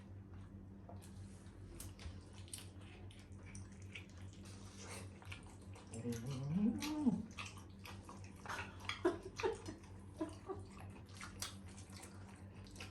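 Close-miked eating: wet chewing, lip smacking and slurping of saucy spare ribs, rice and broth, as many short moist clicks. A brief voiced sound rises and falls about six seconds in, with a few short ones a little later, over a steady low hum.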